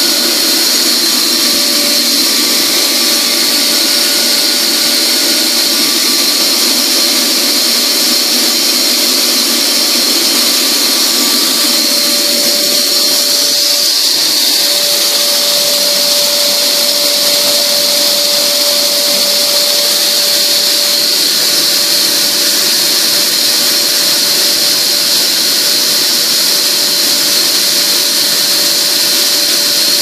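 Neuero grain blower (pneumatic grain conveyor), its 7.5 kW electric motor and fan running steadily: a loud, even rush of air with a steady whine. The whine's tone shifts slightly about halfway through.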